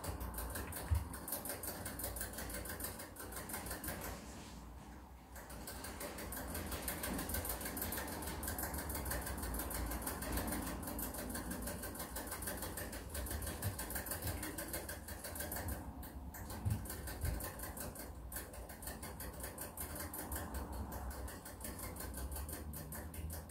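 Rabbit drinking from a cage-mounted water bottle, its tongue working the drinking nozzle in a fast, even run of clicks, with a short pause about four seconds in.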